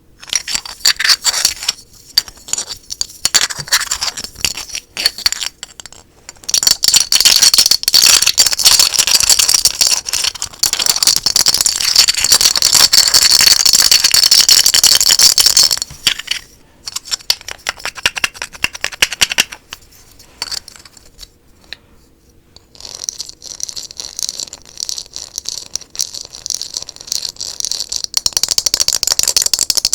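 Fast, hard tapping and scratching on assorted small objects close to the microphone, as a rapid stream of clicks and scrapes. The clicks are densest from about seven to sixteen seconds in, thin out into scattered taps, and run continuously again over the last seven seconds.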